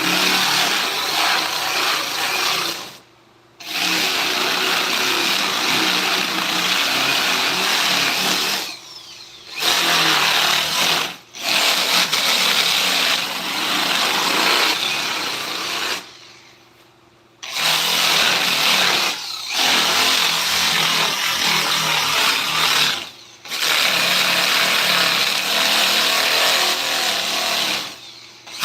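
A handheld power tool, used on wood carving, running in long stretches with a steady hissing buzz. It stops briefly six or seven times and starts again.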